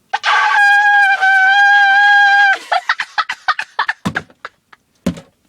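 Shofar (ram's horn) blown in one steady, loud note for about two and a half seconds, then breaking into a run of short sputtering blasts. Two dull thumps follow near the end.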